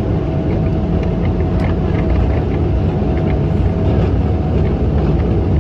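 Steady cabin roar of a Boeing 777 rolling on the ground, the jet engines and rumble heard from inside the cabin, with a steady hum running under it. Faint rattling ticks come through in the first few seconds.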